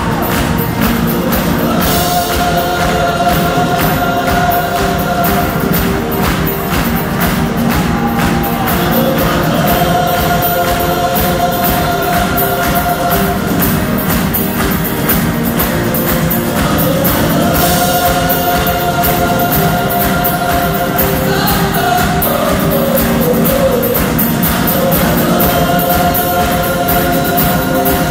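A rock band and a large gospel choir performing a song live together. The choir sings long held notes in repeating phrases over guitars and drums with a steady beat.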